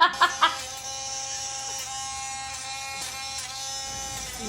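A steady, even buzzing tone that holds one pitch, after a few short laughs at the very start.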